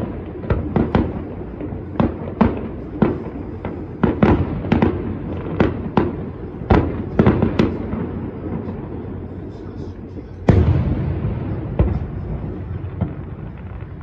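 Aerial fireworks bursting: a rapid, uneven run of sharp bangs for the first eight seconds or so, then one big boom about ten and a half seconds in that rumbles away.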